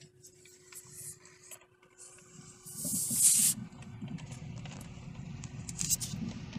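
Vehicle cabin noise while driving slowly over a rough dirt driveway: a low rumble of tyres and suspension that grows about three seconds in, over a steady faint hum, with a brief loud hissing rush at the same point.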